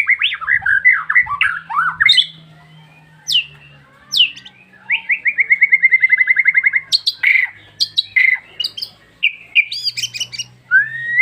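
Songbird singing prinia (prenjak) song: quick varied chirps and whistles, with a rapid even trill of about a dozen notes a second lasting nearly two seconds, starting about five seconds in, then sharp rising chips.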